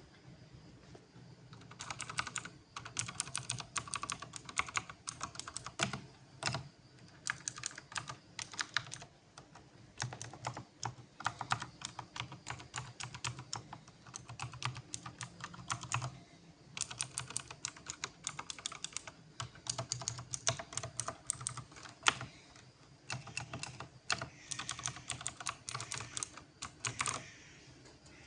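Advan MK2 mechanical keyboard with clicky blue switches being typed on in quick bursts with short pauses, each keystroke a sharp click. One key strike about two-thirds of the way through is louder than the rest.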